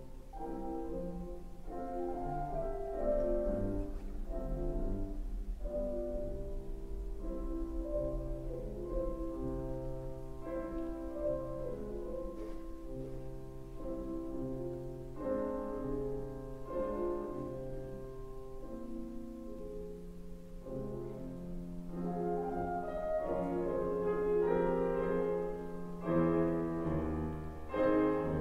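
Solo grand piano playing a slow classical piece: chords in the middle range over a repeated low bass note, growing louder near the end.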